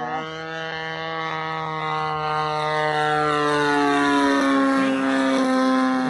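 DLE 20cc single-cylinder two-stroke gas engine of an RC Vans RV-8 model plane running steadily in a fly-by. It grows louder as the plane approaches, and its pitch drops slightly as it goes past about four seconds in.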